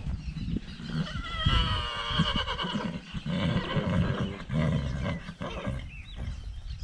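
A horse whinnying once, starting about a second and a half in: a high, quavering call that drops to a lower, shorter stretch, over steady low rumbling noise.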